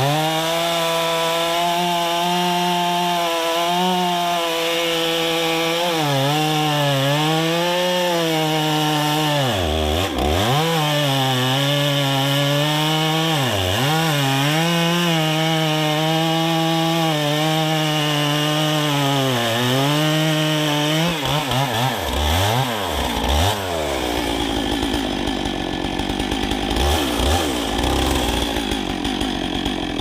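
Two-stroke chainsaw cutting at full throttle through a rack of stacked sawmill slabs. Its pitch sags several times as the bar binds in the crooked slabs. About three quarters of the way through it revs down and idles unevenly.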